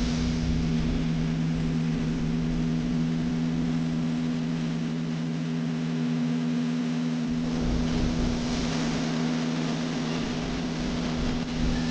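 Diesel road-paving machinery running steadily, a constant low hum over engine noise.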